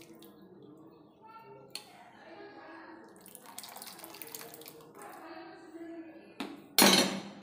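Sambar poured from a ladle back into the pot, the liquid splashing and dripping, heaviest about halfway through. A loud, sudden noise comes shortly before the end.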